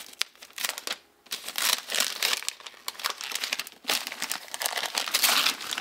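Gift-wrap paper being torn and crumpled by hand as a wrapped book is unwrapped: a few sharp rips, a brief pause about a second in, then steady crinkling and tearing.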